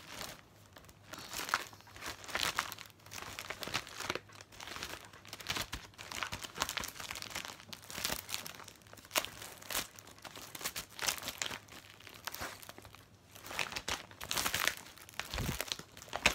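Clear plastic bags crinkling and rustling in irregular bursts as bagged cross-stitch kits are handled and sorted through by hand, with a dull bump near the end.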